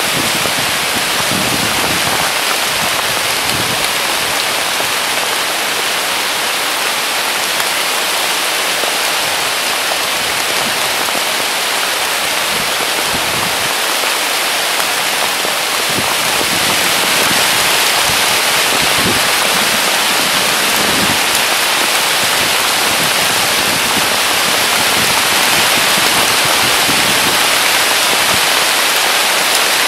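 Heavy rain pouring down steadily on willow leaves and grass, growing slightly louder about halfway through.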